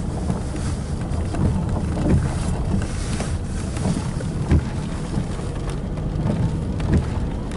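Steady low rumble of a car driving on a wet road, heard inside the cabin, with wind noise and a few brief sharp thumps.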